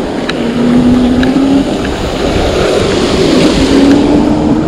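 Loud rushing wind noise on the handlebar microphone and tyre hiss on wet pavement from a moving e-bike, with a low hum that rises slightly in pitch, twice.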